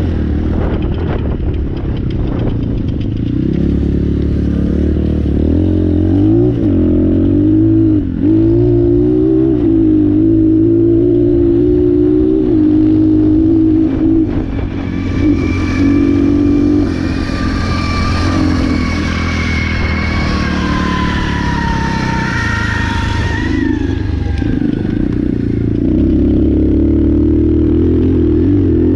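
2019 Apollo 250RX dirt bike's four-stroke single-cylinder engine under way on a trail ride, its pitch rising and falling as the throttle opens and closes and the gears change. A higher whine joins in over the middle stretch and fades away near the end.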